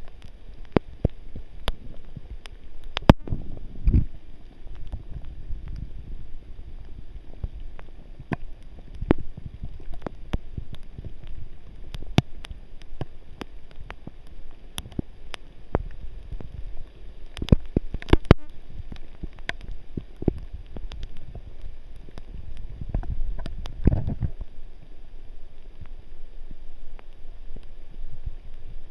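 Rain pattering and dripping in woodland, heard as scattered sharp ticks, over a low uneven rumble of wind and handling on a handheld camera's microphone, with footsteps on a wet dirt trail.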